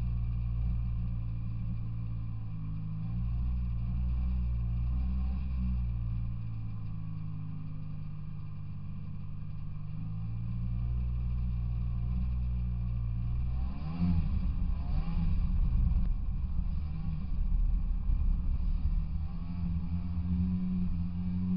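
Snowmobile engine idling, its pitch shifting a few times. About 14 seconds in it revs up louder, with rising sweeps in pitch, as the sled pulls away and runs along the trail.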